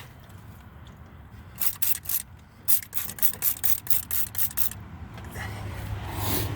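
Aerosol can of rubber-conditioning spray hissing in a quick series of short bursts, about a dozen over three seconds, as it is dabbed onto a suspension bushing.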